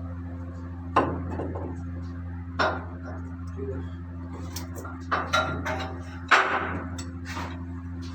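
Metal clanks and knocks from tools and engine parts being handled during piston fitting: five or so sharp hits, the loudest a little past six seconds in, over a steady low machinery hum.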